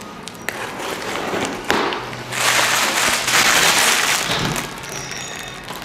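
A utility knife cutting the packing tape on a cardboard box, with a few light clicks, then plastic wrapping rustling and crinkling for a couple of seconds, the loudest sound here.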